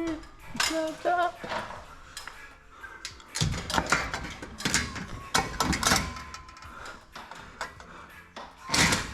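Metal tools and door hardware clanking and clattering, with a cluster of sharp knocks a few seconds in and another near the end.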